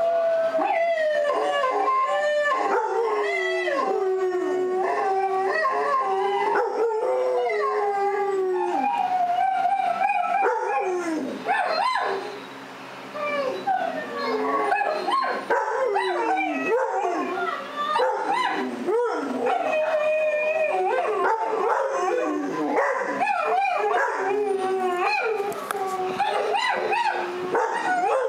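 Several dogs howling in long, overlapping howls that glide up and down in pitch: howling dogs on a television, with the house dog watching it answering them.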